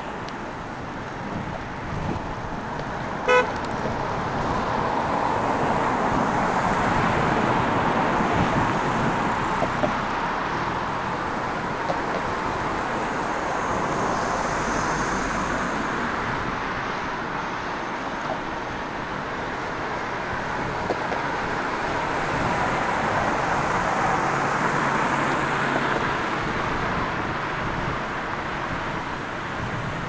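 Steady noise of road traffic passing, with one short horn beep about three seconds in.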